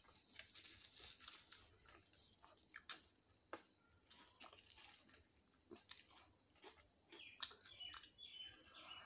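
Close-miked eating sounds: a deep-fried puri crackling as it is torn by hand and scooped through chole, with soft wet clicks, then a bite taken near the end. A few short high-pitched tones come near the end.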